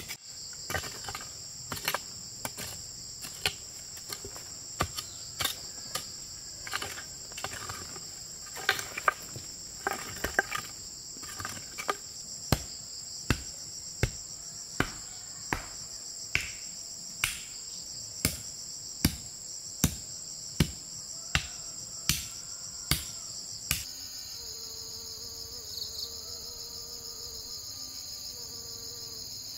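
Constant high-pitched chirring of insects, with sharp blows about once a second from a tool at work. The blows stop about 24 seconds in, and the insect chorus carries on alone, slightly lower in pitch.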